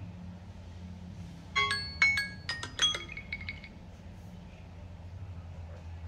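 Smartphone timer alarm going off: a short run of bright chiming notes about a second and a half in, lasting about two seconds, over a low steady hum. It signals that the 15-minute countdown for the self-heating meal has run out.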